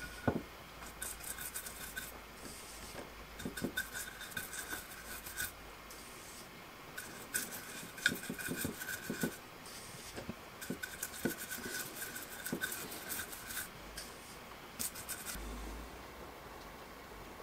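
Bristle paintbrush scrubbing an alcohol-thinned pigment wash onto carved wood, in bursts of quick scratchy strokes with short pauses between.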